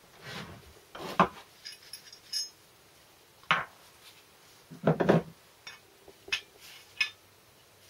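Steel gear selector fork and shaft of a Land Rover Series 3 gearbox clinking and knocking against the gearbox casing as they are handled and fitted. The sound comes as a string of separate metal knocks, the loudest about a second in and about five seconds in.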